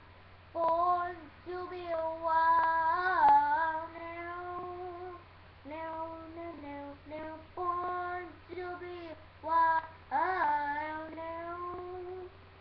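A boy singing unaccompanied, in long held notes with short breaks between phrases.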